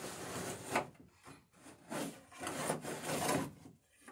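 A pencil scratching along wood in several strokes, its point riding on a steel laid on the boat's bottom planking to scribe the bottom's curve onto the centerboard box.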